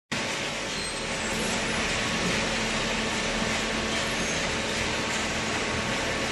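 Hydraulic paper baler's motor and pump running: a steady hiss with a faint low hum.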